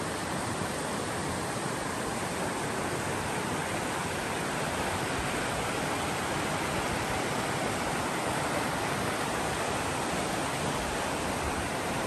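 Mountain creek rushing over granite slabs and small rapids: a steady, even rush of water.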